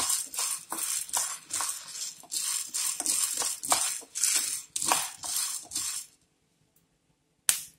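Dried cowpeas rattling and scraping across a nonstick frying pan as a wooden spatula stirs them in repeated strokes, about two to three a second, while they dry-roast until they start to pop. The stirring stops about six seconds in, and a single short knock follows near the end.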